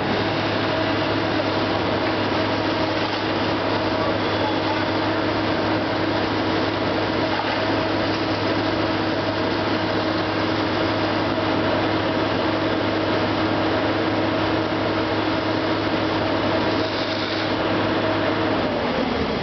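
Excavator's diesel engine running steadily during demolition, a constant hum under an even wash of machine noise.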